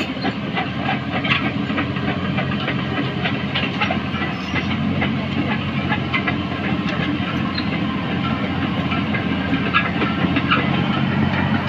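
Caterpillar 312 hydraulic excavator's diesel engine running steadily under load, with scattered metallic clicks and clanks from the machine.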